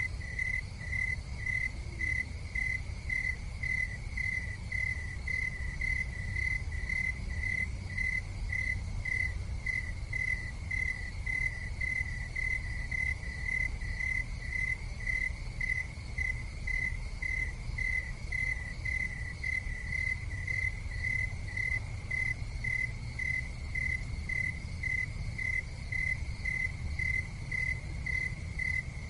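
A cricket chirping steadily in an even, repeating rhythm of about two to three chirps a second, over a steady low rumble.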